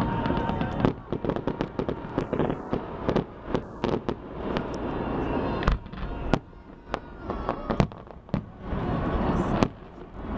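Festive fireworks salute bursting: a quick run of sharp bangs and crackles, densest in the first half, over the voices of a crowd.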